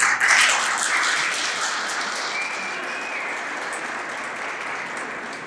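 A crowd applauding, breaking out suddenly and then slowly dying down. A short high tone rises above the clapping about two and a half seconds in.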